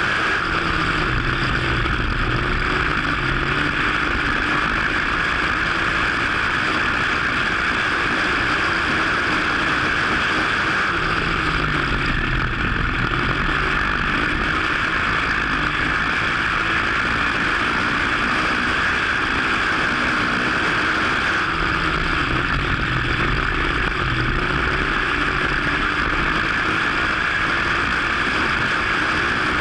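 Dirt-track modified race car's V8 engine at racing speed, heard from inside the cockpit, with steady loud wind and engine noise. About every ten seconds the engine note drops as the driver lifts for a turn, then climbs back on the throttle, three times in all.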